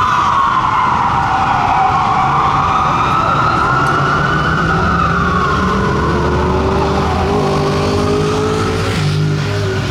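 Fire truck siren wailing in a slow rise and fall, fading in the second half as the low note of a heavy engine comes up and climbs slightly.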